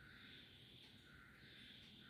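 Near silence: faint room tone with a steady, slowly wavering hiss.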